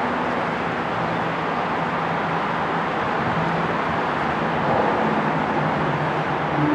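Electric locomotive standing still with its equipment running: a steady whooshing blower noise with a low hum under it.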